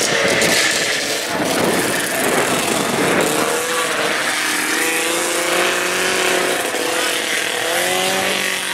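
Snowmobile engine running, its pitch wandering slowly up and down, over a steady hiss.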